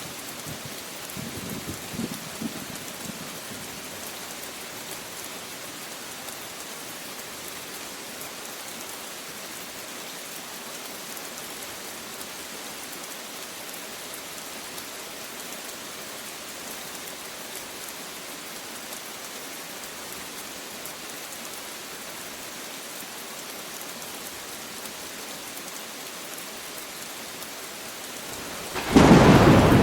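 Steady rain falling, with a brief low rumble about two seconds in, then a sudden loud crack of thunder right at the end.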